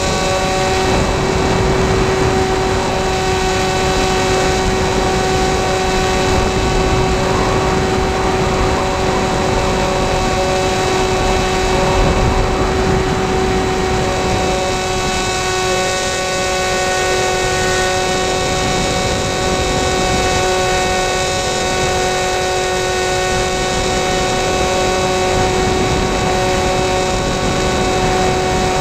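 Sky Eye RC plane's electric motor and propeller whining steadily in flight, with a slight change in pitch about halfway through, over rough wind buffeting on the onboard camera's microphone.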